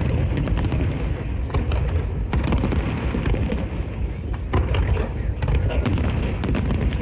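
Large aerial fireworks display going off in quick succession: a continuous low rumble of booms, with many sharp cracks and crackles over it.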